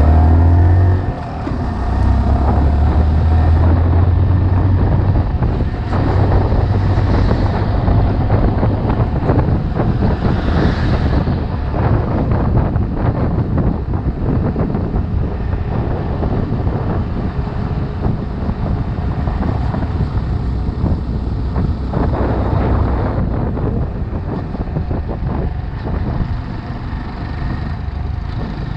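Small 125 cc single-cylinder motorcycle engine running while riding, with wind rushing over the microphone; the engine note is strongest in the first few seconds.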